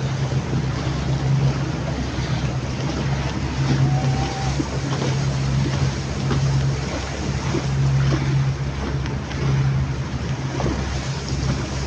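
Boat engine droning low and steady, swelling and fading every few seconds, under a rushing of wind and water.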